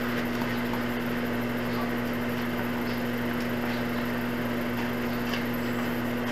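A steady low hum under constant hiss, with a single faint click about half a second in and a few faint short high sounds.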